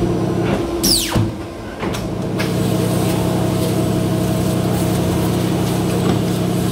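Polar 115X guillotine paper cutter running with a steady motor hum. About a second in, a quick falling whine and a brief dip in the hum, which then settles back.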